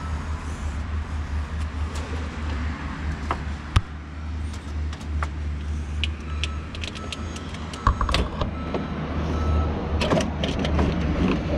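Metal clicks and knocks as a rusty power steering cooler is worked out from behind a pickup's grille: two sharp clicks, then a burst of knocking and rattling near the end, over a steady low rumble.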